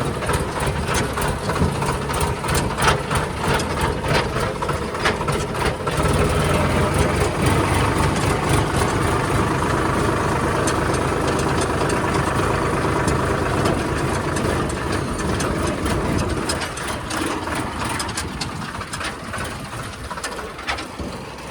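Heavy diesel engine running, growing louder about six seconds in as it works harder and easing back near the end. Scattered knocks and clanks come over it at the start and again near the end.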